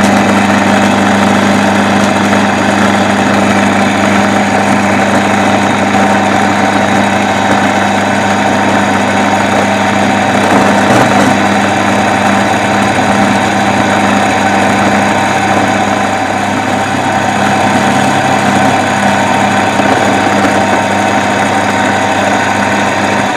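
Metal lathe running steadily, with an end mill held in its chuck cutting a slot halfway into a metal disc and throwing chips: a steady machine hum with a strong low note.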